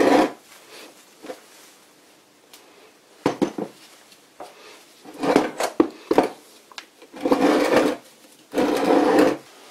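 A small cast-metal lathe accessory with handwheels being turned over and set down on a wooden workbench: several bursts of knocking and metal scraping on wood, the last two longer.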